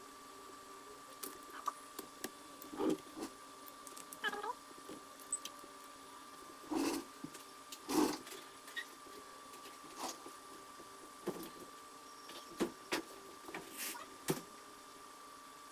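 Scattered light clicks, taps and knocks of laptop parts and tools being handled on a workbench, a dozen or so irregular strokes, over a faint steady high-pitched tone.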